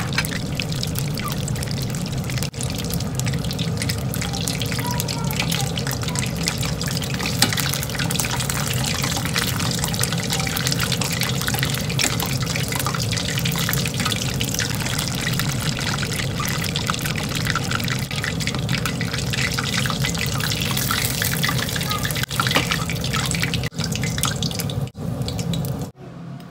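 Chicken wings deep-frying in a pot of hot oil: a steady crackling sizzle that stops suddenly near the end.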